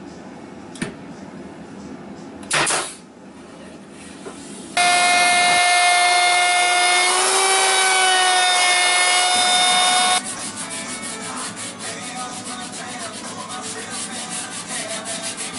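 A cordless drill/driver whirs briefly as it drives a screw into the wooden stand. About five seconds in, a power tool starts and runs steadily for about five seconds, its pitch dipping slightly midway as it takes load. After it stops, there is a quieter rhythmic rubbing of a board being sanded by hand.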